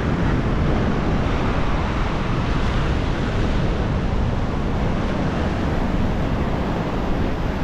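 Strong wind buffeting the microphone over the steady rush of sea surf.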